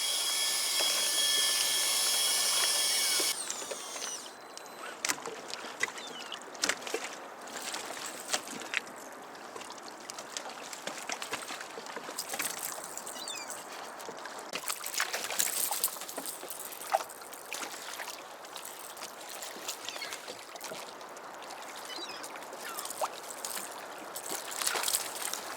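A bright steady chord of high tones for the first few seconds, cutting off suddenly. Then water lapping and splashing around a kayak, with scattered clicks and rustles of handling.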